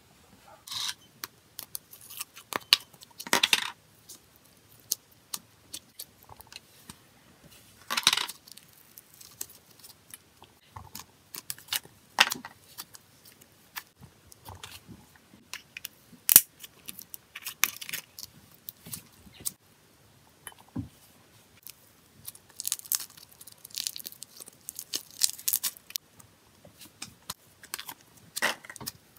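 Slime being handled and scooped from small plastic tubs into a stainless steel bowl: scattered sticky crackles and squishes with sharp clicks and taps of the plastic containers, in short bursts with quiet gaps between.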